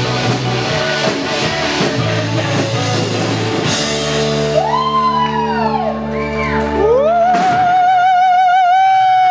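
Live rock band with drum kit and electric guitars playing, then holding a sustained chord from about four seconds in. Over the chord a woman sings long notes, ending with one high note held with vibrato for over two seconds near the end.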